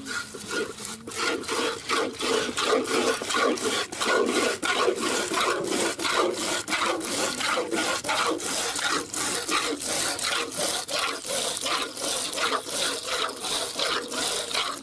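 A cow being milked by hand: quick, rhythmic squirts of milk hiss into the foaming milk in a plastic bucket, about three strokes a second.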